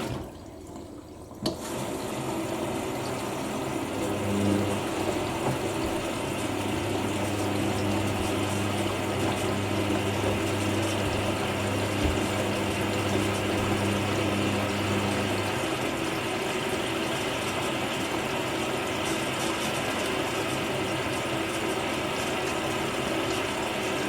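Front-loading washing machine (Hoover NeXtra HNL3146) filling with water through its detergent drawer during a rinse, taking in fabric conditioner; a steady rush of water. A click comes about a second and a half in, after a brief lull, and a low hum runs underneath from about four seconds in until about fifteen seconds in.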